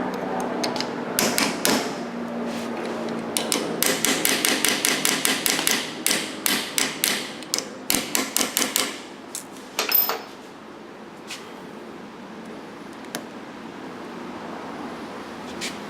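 Quick, light hammer taps on metal as a flange on the door lock solenoid is worked over: scattered taps at first, then a fast run of taps from about four to nine seconds in, one last sharper tap, and then only a few faint ticks.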